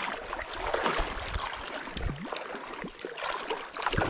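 Water splashing and sloshing in irregular bursts with a few dull knocks: a hooked fish thrashing at the surface as it is pulled in.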